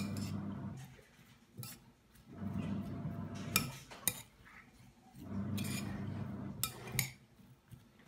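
A bare hand mixing cooked ground beef with chopped carrot, onion and garlic in a glass bowl: soft squishing and rustling in three stretches, with several sharp clinks against the glass.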